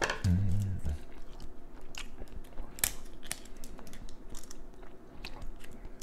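Close-miked eating of boiled crab: chewing with scattered sharp cracks and crunches of shell, the loudest crack about three seconds in.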